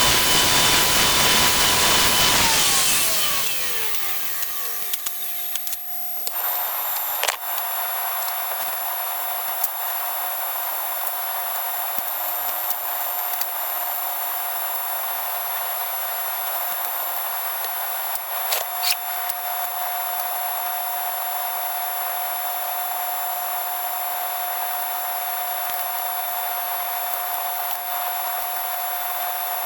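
A woodworking power tool's motor running, then spinning down with a falling whine about three seconds in. After that comes a steady hiss with a faint steady tone, like a fan or extractor running, and a couple of brief clicks.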